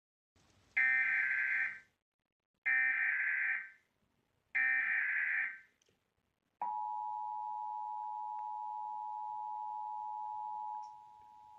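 Emergency Alert System broadcast: three roughly one-second bursts of the SAME digital header, then the two-tone attention signal (853 and 960 Hz) as a steady dual tone that drops in level about a second before the end. It marks the start of a Required Monthly Test.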